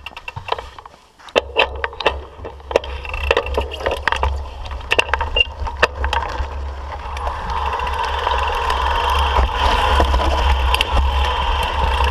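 Mountain bike riding over a rocky dirt trail: frame and parts rattling and clunking as the wheels hit rocks, with a low wind rumble on the camera microphone. About halfway in, the knocks thin out and a steadier rushing noise builds as the bike picks up speed.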